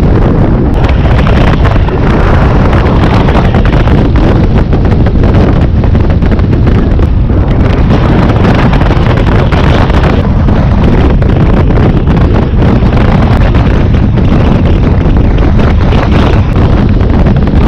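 Loud, steady wind buffeting on the microphone of a camera on a moving touring motorcycle, with the bike's engine and tyre noise blended into the rush.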